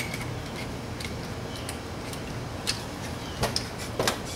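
Light clicks and knocks of metal engine parts being handled during piston and cylinder assembly: one at the start and several close together in the last second and a half, over a steady low hum.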